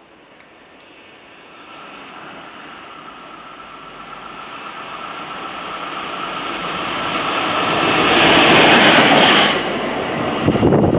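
Single locomotive running light along the track, its rumble and wheel noise growing steadily for about eight seconds as it approaches, peaking as it passes close by, then falling away. A brief low rushing burst follows near the end.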